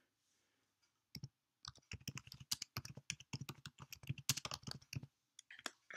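Typing on a computer keyboard: a quick run of key clicks that starts about a second in and stops about five seconds in, followed by a couple of last taps.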